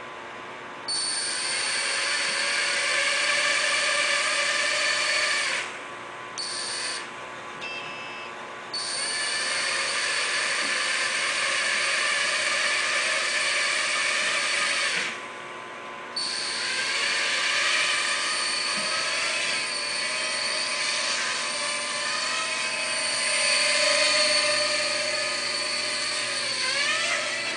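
Small toy quadcopter drone's four electric motors and propellers whining at a high pitch. The whine starts about a second in, cuts out and spins back up three times, with a brief blip between two of the runs.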